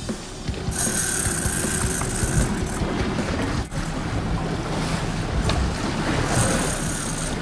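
Wind buffeting the microphone over the steady wash of choppy sea, heard from a boat.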